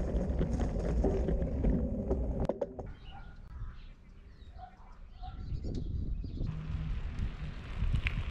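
Low rumble of wind and tyres while riding a bicycle with a handlebar-mounted camera, cutting off about two and a half seconds in. Birds calling in a quieter stretch, then a steady rumble of wind noise returns near the end.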